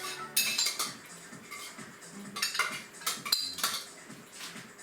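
Metal spoon scraping and clinking against the inside of a cooking pot, getting the last of the food off the bottom. The strokes are short and irregular.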